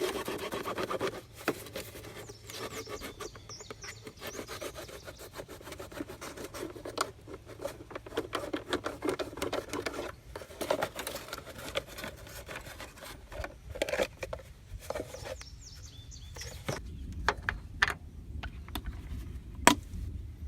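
Pocket knife sawing and scraping through a plastic motor-oil jug to cut its bottom out, a run of irregular rasping strokes. A sharp click comes near the end.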